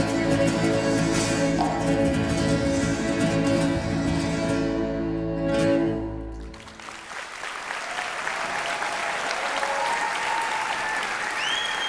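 A small band of violin, cello, guitar, bass and percussion holds a final chord that cuts off about six and a half seconds in, then audience applause.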